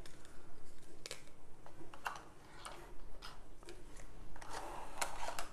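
Light clicks and taps of a plastic diamond-painting drill tray being handled and set into a wooden tray holder, with a short rustle near the end.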